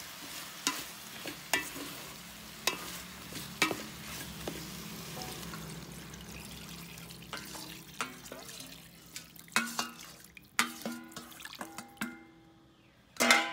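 Beef sizzling in a pot as a wooden spatula stirs it, knocking against the pot about once a second; then water is poured in from a metal bowl to start the braise, with small clinks, and a sharp metallic clank near the end.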